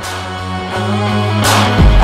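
Background music fading in, with a steady low bass and a sudden bright hit near the end.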